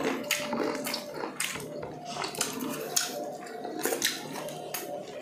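Close-up mukbang eating sounds: wet chewing and sharp lip smacks at irregular moments as two people eat grilled chicken and rice with their hands.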